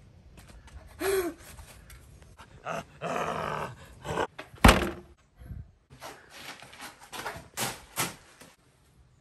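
A person groaning and growling in imitation of a zombie, in short rough bursts, with one sharp loud thunk a little under five seconds in.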